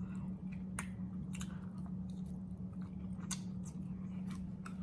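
Close-up chewing and mouth sounds of a person eating collard greens by hand: scattered sharp wet clicks and smacks over a steady low hum.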